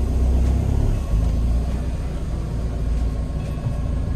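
Vehicle engine running with road noise as it drives: a steady low rumble, a little louder in the first second.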